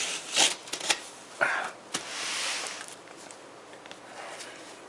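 Cardboard box being handled and worked open: a few sharp rustles and knocks, then a longer scraping slide about two seconds in, with lighter handling noise after.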